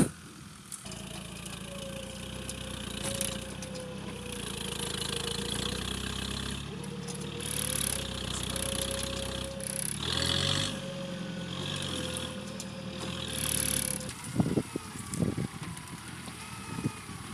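Nissan Terrano's diesel engine running with a steady whine over it from its electric winch pulling under load, the whine breaking off briefly about ten seconds in. A few sharp knocks near the end.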